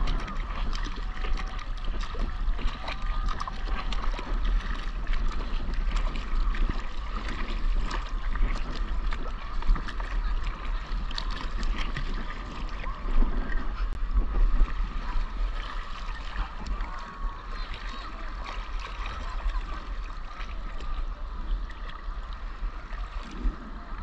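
Sea water splashing and lapping around a surfboard as the rider paddles by hand, with many small splashes over a constant low rumble.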